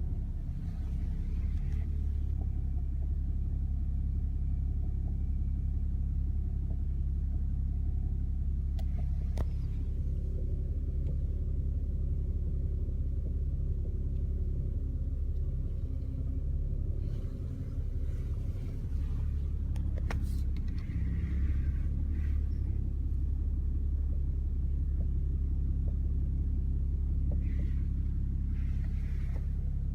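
BMW E61 5 Series with active steering, its engine running with a steady low rumble. Two sharp clicks sound about nine and twenty seconds in, with a few short stretches of faint hiss, as the steering wheel is turned slightly. The owner puts the clicking down most likely to a faulty active-steering rack.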